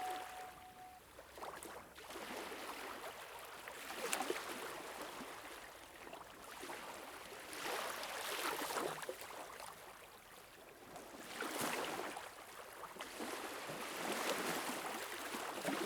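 Water sounds: a rushing wash that swells and fades about every three to four seconds, like small waves or surging water.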